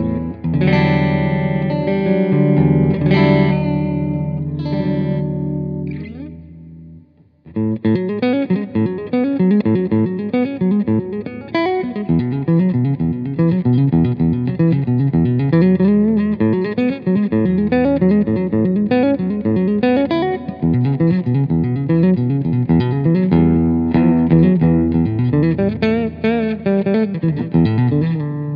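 Fender American Standard Stratocaster (HSS) electric guitar played through an amp: chords ring out and fade for the first six seconds or so, then after a brief pause come fast picked single-note runs.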